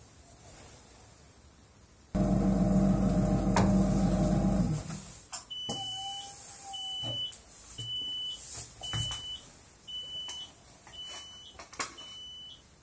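An electric dental vibrator under a duplicating flask hums loudly for about three seconds, then switches off. It is followed by seven short high beeps about a second apart.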